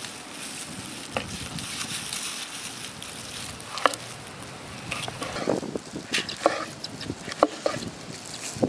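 Kitchen knife chopping a green capsicum on a wooden cutting board: sharp, irregular knocks of the blade striking the board, coming more often in the second half, over a steady background hiss.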